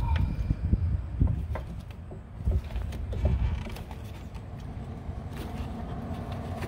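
Light clicks and knocks of hands working metal brake-line fittings into an ABS module, over a low steady rumble.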